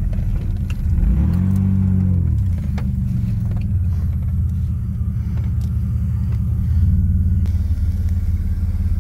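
Vehicle engine running with a low rumble, revving up and back down once about a second in.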